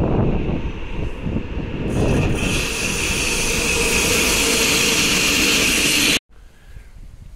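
Two coupled ČD Cargo class 372 electric locomotives running light past at speed: a heavy rumble of wheels on rail with a strong steady hiss that builds about two seconds in. The sound cuts off abruptly about six seconds in, leaving much quieter outdoor background.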